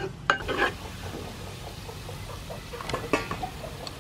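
Chopped garlic frying lightly in oil in a non-stick frying pan as it is stirred with a spatula, with a sharp tap of the spatula on the pan about a third of a second in and a few more clicks near the end.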